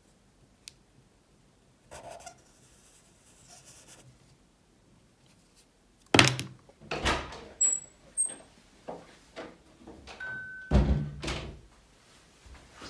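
Soft scratching of a felt-tip marker drawing a circle on a paper calendar, then from about halfway a string of loud thumps and knocks, with a couple of brief high tones among them.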